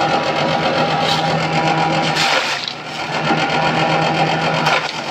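Small grass chopper (chaff-cutter) running with a steady motor hum. Green fodder being fed into the cutting blades gives two short rasping bursts, about halfway and near the end.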